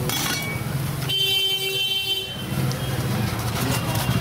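A vehicle horn honks once, a steady tone of a little over a second starting about a second in, over a low, steady street hum.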